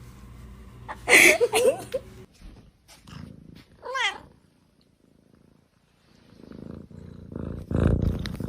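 A cat meowing: a loud call with a wavering pitch about a second in, and a shorter wavering call around four seconds in. A loud low rustle comes near the end.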